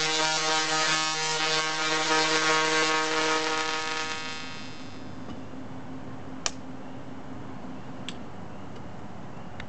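Dual-resonant solid-state Tesla coil (DRSSTC) arcs buzzing at a steady pitch, the rate of its interrupter, for about four and a half seconds, then dying away. A faint low hum stays afterwards, broken by a couple of sharp clicks.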